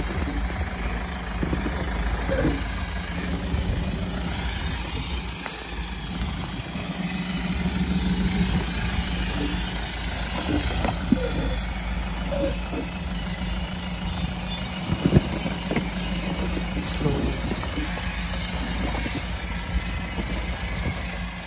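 Modified solid-axle Mahindra Thar's engine running steadily at low revs while rock crawling, with a sharp knock about fifteen seconds in.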